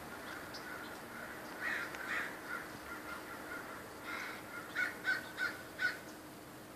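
Crows cawing harshly as a flock mobs a raptor: a few caws about two seconds in, then a run of four or five louder caws between four and six seconds in.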